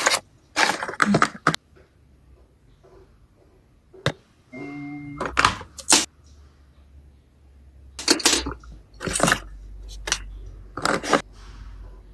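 Sharp clicks and knocks of a phone being handled and tapped close to its microphone. A short electronic tone sounds about four and a half seconds in, under a faint low hum.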